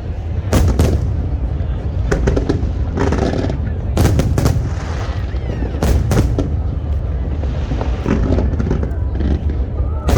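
Aerial fireworks exploding: sharp bangs in quick pairs about half a second in, around four seconds and around six seconds, with crackling shells in between over a steady low rumble.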